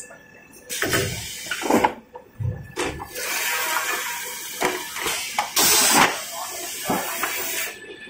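Kitchen towel paper rewinding machine running, with faint steady whines under irregular knocks and clatter, and a loud burst of hiss a little past halfway through. Voices can be heard underneath.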